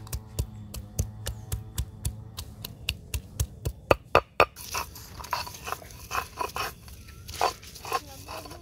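Garlic cloves being crushed on a flat stone grinding slab with a stone hand-grinder (sil-batta): quick knocks about four a second, the last few the loudest. About halfway through, the knocking gives way to a crunching, scraping grind as the stone is rolled back and forth over the crushed garlic.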